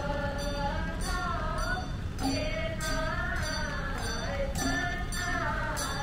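Melodic chanting by voices, with a bell-like percussion strike about every 0.6 seconds keeping a steady beat, typical of the prayer chanting of a Hungry Ghost Festival blessing rite.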